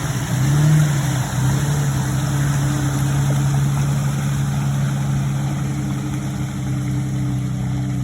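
Jeep TJ engine running, with a brief rise in revs about half a second in, then holding a steady pitch.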